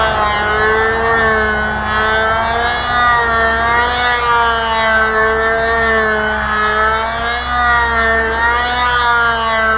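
Ringmaster control-line model airplane engine running at full power in flight, a steady high buzz whose pitch rises and falls in a regular cycle, once each time the plane circles past on its lines.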